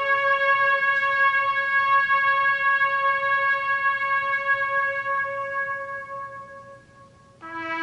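Instrumental music of long held chords: a sustained chord slowly fades away, and a new chord comes in suddenly just before the end.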